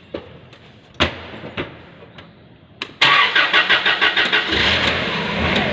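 A few knocks and clicks as the operator climbs into a Toyota forklift seat, then about three seconds in the forklift's engine is cranked and starts, pulsing briefly before it settles into a steady run, its speed falling toward idle near the end.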